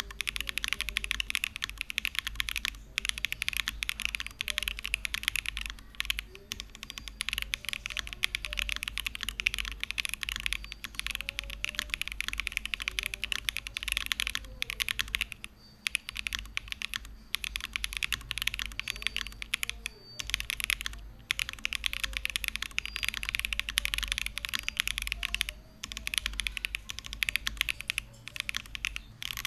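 Sound test of Akko Starlit linear switches in an Akko U01 mechanical keyboard with double-shot PBT keycaps: fast, continuous typing, a dense clatter of keystrokes broken by a few short pauses.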